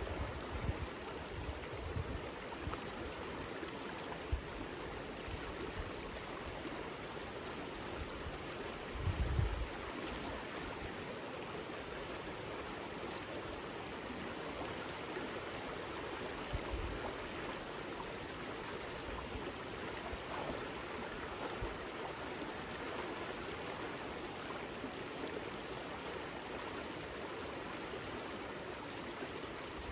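River water rushing steadily over rocks in a shallow riffle, with a few short low bumps, the strongest about nine seconds in.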